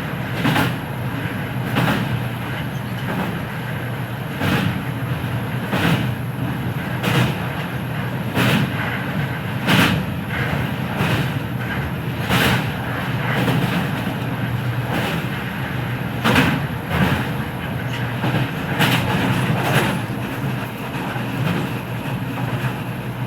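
Kita-Osaka Kyuko 9000 series subway train running at steady speed, heard from the floor above a motor bogie: a continuous underfloor rumble with wheels clicking over rail joints at an even pace, about once every 1.3 seconds.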